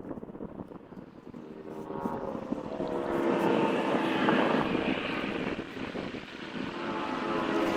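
A distant engine drone, steady in pitch, growing louder over the last several seconds, like a propeller aircraft approaching.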